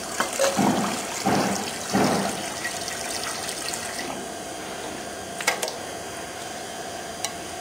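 Sugar solution gushing from a stainless sample valve into a metal scoop, splashing in three or four surges over the first two and a half seconds, then trickling. A couple of sharp metal clinks follow, about five and a half seconds in and again near the end.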